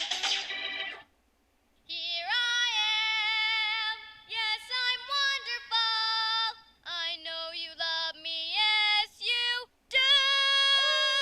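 Music cuts off about a second in. Then a girl's high voice sings unaccompanied, holding and sliding between notes in short phrases broken by brief pauses, as if practising scales.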